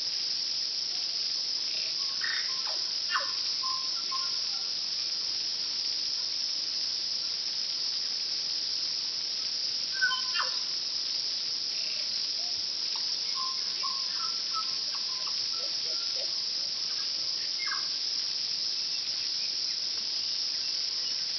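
A steady, high-pitched insect chorus, with a tui's scattered song notes (short clicks and brief whistled and chiming notes) breaking in about two seconds in, around ten seconds, and again in the second half.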